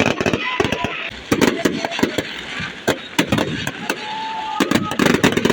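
Fireworks exploding in rapid, irregular bangs and crackles, some in quick clusters, with a steady whistling tone about four seconds in.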